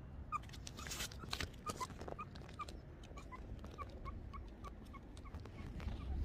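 A meerkat giving a string of short, soft peeping calls, about two to three a second, mixed with scattered sharp clicks and knocks.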